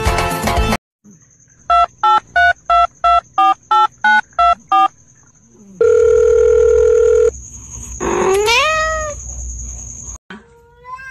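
Music cuts off, then nine quick telephone keypad tones, a long steady beep of about a second and a half, and a cat's meow that rises in pitch. Another meow starts right at the end.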